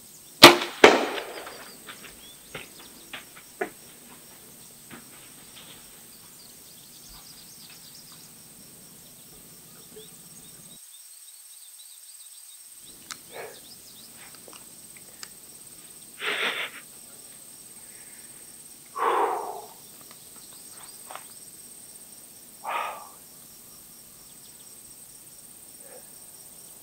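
Bow shot about half a second in: one sharp, loud crack of the released string, followed by a brief rattle of smaller clicks. Later come three short breathy whooshes a few seconds apart.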